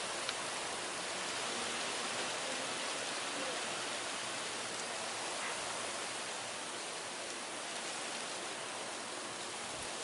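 Steady hiss of high wind, even and unbroken, with no gusts striking the microphone.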